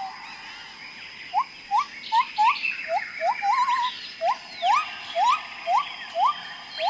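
Wildlife calls: a series of short chirps, each sweeping up in pitch, repeating about twice a second after a quieter first second, one of them warbling. Fainter, higher chirps and a steady high tone sound behind them.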